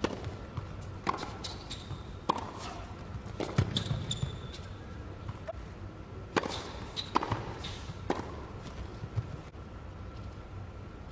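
Tennis balls struck by rackets and bouncing on an indoor hard court: a string of sharp hits about a second apart, mixed with short high-pitched sneaker squeaks on the court surface.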